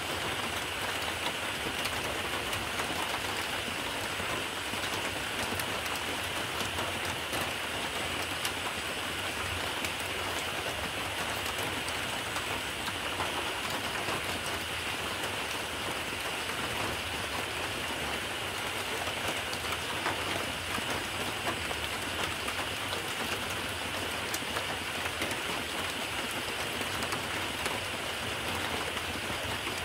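Steady rain: an even hiss dotted with fine ticks of drops, unchanging throughout.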